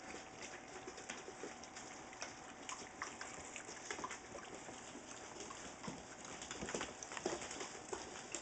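Saint Bernard puppies moving about on a hard floor: scattered light clicks and patter of claws, with a few short, soft puppy vocal sounds about six to seven seconds in.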